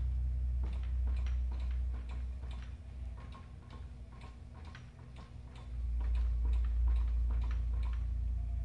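Self-driving converted power wheelchair moving across a concrete floor. Its drive motors hum low, easing off midway and swelling again about six seconds in, over a rapid, irregular ticking of several clicks a second.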